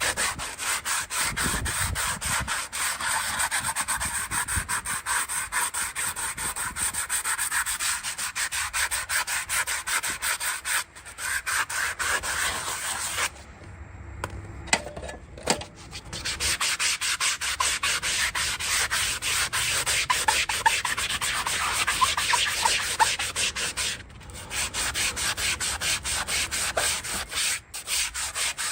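A farrier's rasp filing a horse's hoof: rapid, repeated scraping strokes, briefly paused a few times and with a longer pause of about three seconds near the middle.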